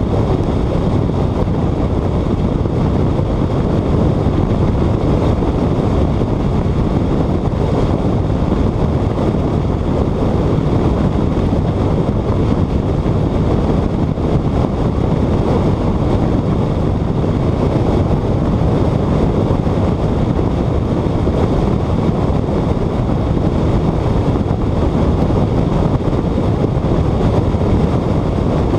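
Steady wind rush over a car's exterior-mounted camera at high track speed, blended with the car's road roar into one loud, even rumble.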